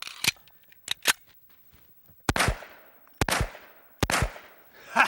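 Three shots from a Magnum Research Desert Eagle .50 Action Express pistol, a little under a second apart, each trailing off in a short echo. A few light clicks come before the first shot.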